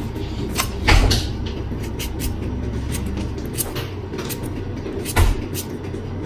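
Kitchen knife paring the skin off a raw potato in short scraping strokes, over a steady low rumble, with dull thumps about a second in and again near the end.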